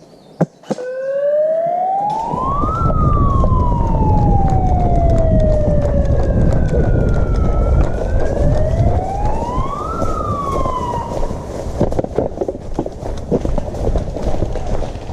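A motor siren winding up and coasting down twice: a rising wail for about two seconds, then a slow fall, then a second rise and fall. This signals the start of the game. Loud low rumbling noise runs underneath, and there is a sharp click just before the siren begins.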